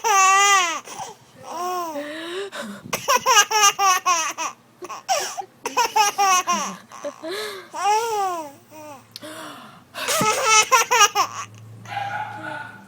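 A small child laughing hard in repeated high-pitched fits, each a second or two long, with short breaks between them.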